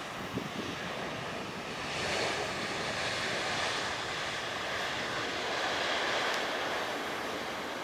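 Jet engine noise from a Boeing 777-300ER's twin GE90 turbofans as the airliner touches down and rolls out on the runway. The noise swells about two seconds in and swells again near six seconds.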